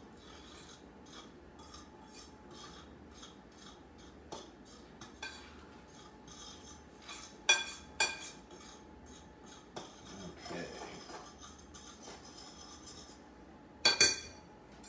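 A kitchen utensil stirring dry flour, salt and baking soda together in a mixing bowl, in steady scraping strokes about twice a second. It knocks against the bowl with a few sharp clinks, twice in quick succession about halfway through and loudest near the end.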